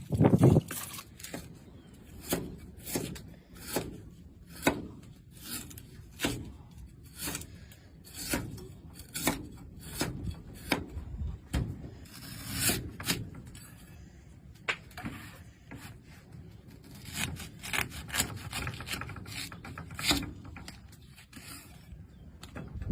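Repeated short, rough scraping strokes against wood, about one or two a second at an uneven pace.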